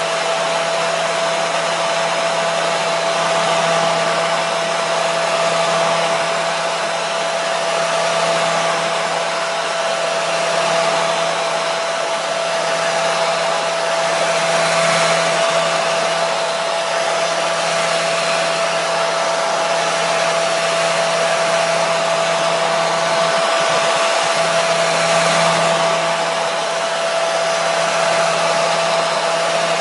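Hair dryer running continuously at a steady speed: an even rush of blown air with a steady hum from the motor.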